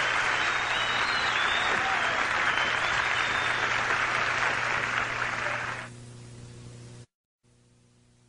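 Theatre audience applauding and cheering, with a few high whistles, until the applause is cut off about six seconds in. Only a low steady hum from the old recording is left after that, with a short dead gap near the end.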